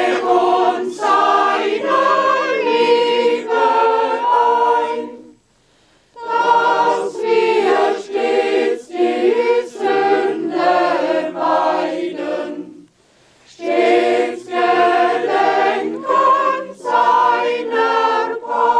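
A congregation sings a hymn without accompaniment, in three long phrases with brief breaks about five and a half and thirteen seconds in.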